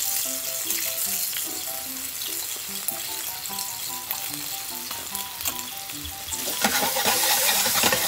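Chicken and eggplant sizzling as they fry in a hot frying pan, the sizzle growing louder about six and a half seconds in. A light background melody of short notes plays along.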